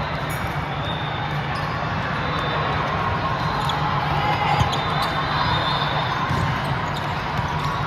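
Busy volleyball gym: a steady din of voices and play, with balls being struck and bouncing on the hard court.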